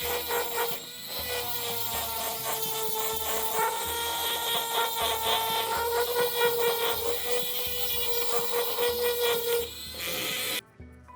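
A power tool runs under load with a steady motor whine over a rough grinding noise, then cuts off abruptly near the end.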